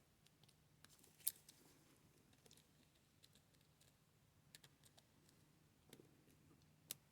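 Faint, sparse metallic clicks and ticks of a hook pick and tension wrench working the pin stack of a brass Master Lock padlock, with one sharper click about a second in.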